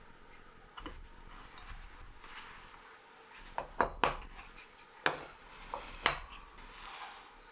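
About half a dozen sharp metal clinks, bunched in the second half, as steel tools and metal hardware are picked up and set down on a wooden workbench.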